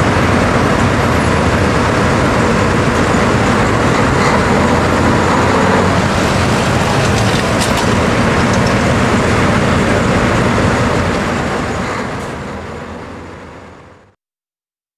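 John Deere pro stock pulling tractor's turbocharged diesel engine running loud and steady after its pull, in a dense arena din. It fades out over the last few seconds.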